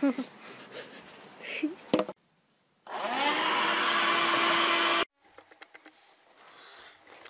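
A small electric appliance motor starts up. Its whine rises and settles into a steady hum with rushing air, runs for about two seconds, then cuts off suddenly.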